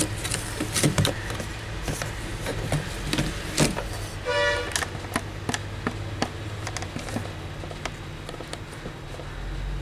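Handling clicks and knocks of a digital multimeter and its test leads over a steady low hum, with one short pitched toot about four seconds in.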